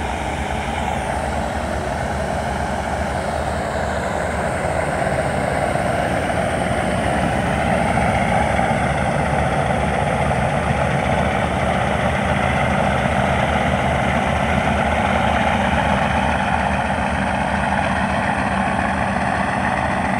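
Ship's engine running steadily: an even, unbroken low drone.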